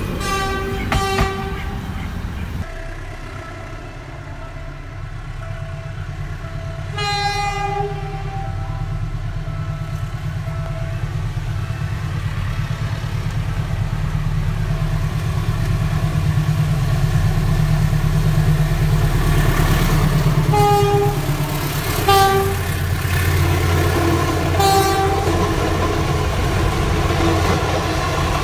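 A diesel train horn sounds two short toots. Then a diesel locomotive approaches with its engine running and growing louder, and it sounds its horn: one blast of about a second, then three shorter blasts as it draws near and passes with its coaches.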